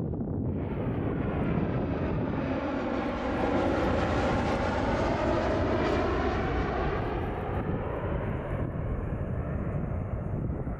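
Jet airliner passing by, its engine noise swelling to a peak about halfway through and then fading, with a sweeping, phasing tone as it goes past.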